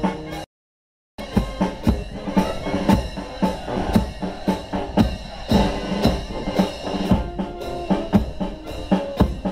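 Military march music with a steady drum beat, about two beats a second, to which troops march in step. The sound drops out completely for a moment about half a second in.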